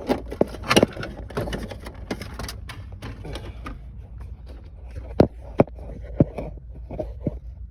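Hard plastic dashboard trim clicking and knocking as it is handled and fitted back into the dash, in irregular sharp taps with a few louder knocks about a second in and five to six seconds in.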